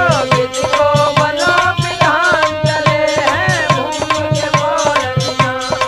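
Instrumental interlude of Indian folk song accompaniment: tabla beating a steady rhythm, about four strokes a second, under held drone notes and a bending melody line.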